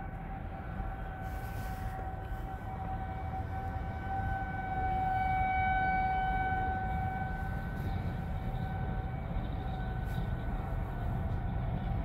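Federal Signal Model 2001-series outdoor warning sirens sounding a steady tone in a monthly tornado-siren test, heard from inside a parked car. The tone swells louder about five seconds in and eases again as the rotating siren sweeps past, over a steady low rumble.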